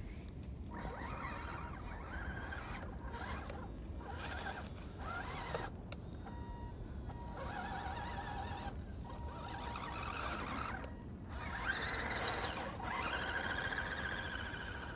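Axial SCX10 RC crawler's electric motor and gearbox whining in a series of short throttle bursts, each rising and falling in pitch, as the truck pushes its plow through snow. A faint steady whine holds between the bursts.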